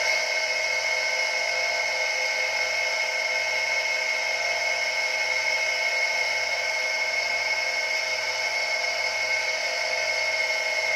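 Small electric water pump running dry on the bench with no water connected, its motor giving a steady high-pitched whine with a low hum beneath.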